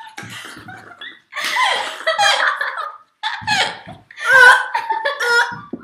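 Girls laughing hard in several long bursts, loudest near the end.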